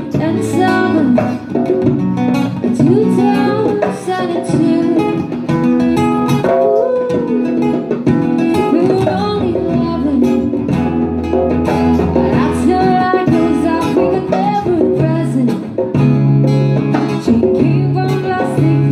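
Live acoustic trio performing a song: a woman's amplified singing over strummed acoustic guitar, with djembe hand-drum beats.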